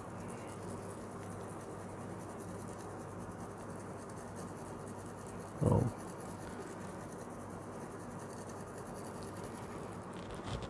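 Iron filings sprinkled from a small cup onto a sheet of paper: a faint, steady scratchy pattering of fine grains. One short, dull bump sounds a little before six seconds in.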